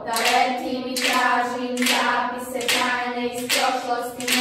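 A group of children singing in unison over a steady held note, punctuated by repeated hand claps in a rhythm.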